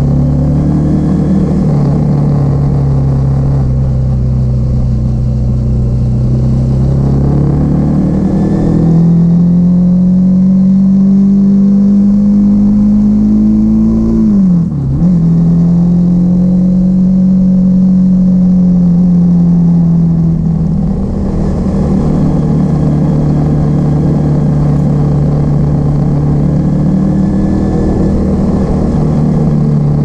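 Bajaj Pulsar NS200 motorcycle engine and exhaust running at a steady cruise while riding. Its note drifts slowly, drops sharply and picks up again about halfway through, and settles lower about two-thirds through and again near the end.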